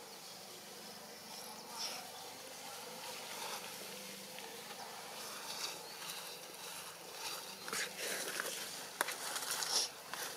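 Outdoor jungle ambience: a steady hiss with a few brief high chirps, and several sharp clicks and short rustles about nine seconds in.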